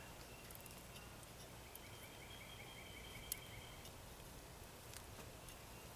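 Near silence: faint outdoor background with a faint, rapid trill from about one and a half to four seconds in, and a single small click a little after three seconds.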